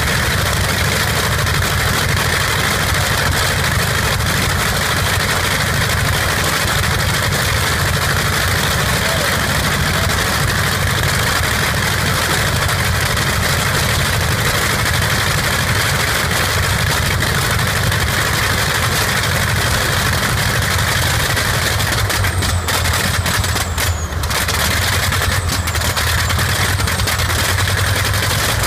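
Radial aircraft engine turning its propeller, running steadily.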